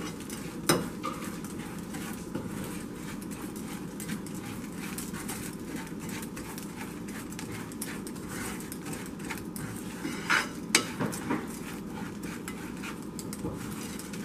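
Metal spoon scraping and clinking against a nonstick frying pan as clumped sugar is stirred continuously while it melts into caramel and tends to stick. A sharper knock of the spoon on the pan comes just under a second in, and a few more, the loudest, around ten to eleven seconds in.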